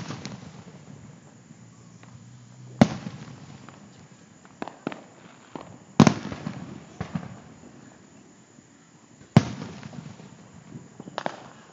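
Aerial firework shells bursting: three loud booms about three seconds apart, each trailing off in a rolling echo, with a few smaller pops between them.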